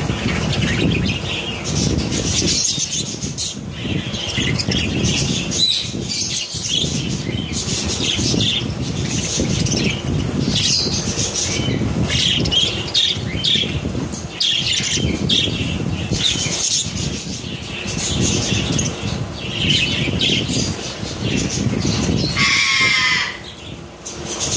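A flock of hagoromo (helicopter) budgerigars chattering with short chirps and squawks over a lot of wing fluttering and rustling as they jostle at a millet spray. One louder, longer call with a rising pitch stands out near the end.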